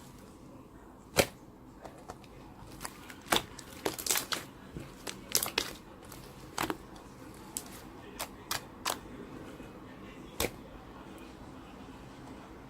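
Slime being pressed and poked by hand, giving irregular sharp clicks and pops. They come thickest in the middle and stop about two-thirds of the way through.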